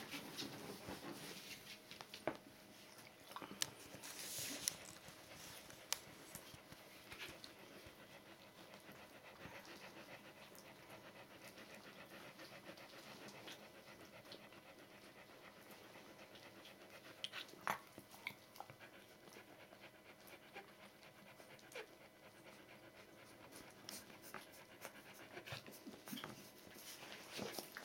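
Faint panting from a Border Collie with nursing two-week-old puppies, with scattered soft clicks and smacks from the puppies suckling.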